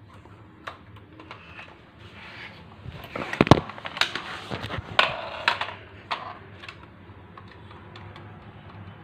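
Irregular plastic clicks and knocks of a toy Nerf blaster being handled, with a cluster of sharper knocks between about three and five and a half seconds in.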